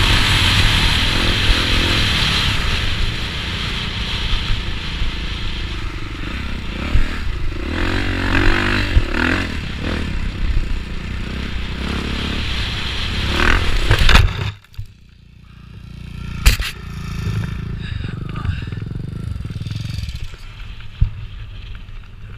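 Motocross bike engine running hard, heard from a helmet-mounted camera with wind and rattle. About two thirds of the way through there is a loud impact and the engine cuts out suddenly: the bike has gone down. After it come wind noise, a sharp knock and a low rumble.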